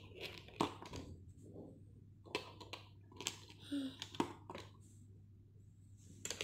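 A child's hands rummaging through small hard objects: irregular light clicks and taps, a dozen or so, with no steady rhythm, over a low steady hum.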